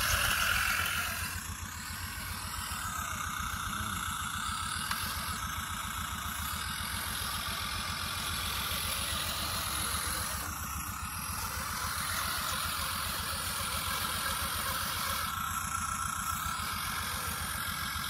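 Radio-controlled scale model Ford 6640 tractor running as it works the dirt: a steady, even engine-like chugging with a high whine over it that changes little.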